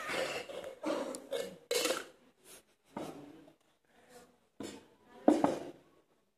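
Stainless-steel cocktail shaker tins knocking and clanking as they are handled and set down. The knocks come one at a time with short gaps, and the loudest, with a brief ring, comes about five seconds in.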